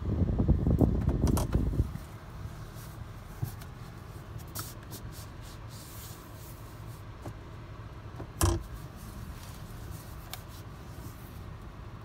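Rubbing and scraping handling noise for about two seconds, then a quiet background with a few light clicks and a single dull thump later on.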